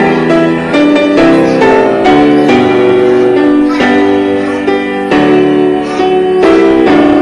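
Instrumental background music led by piano, its notes and chords changing about every half second.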